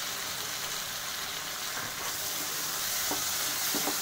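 Peas and spices frying in a nonstick kadai with a steady sizzle, while a wooden spatula stirs through them, scraping and tapping the pan a few times in the second half.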